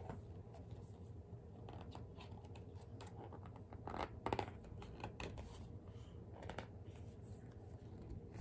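Faint handling of a picture book: soft scrapes, rubs and taps of the pages as they are turned, loudest about four seconds in.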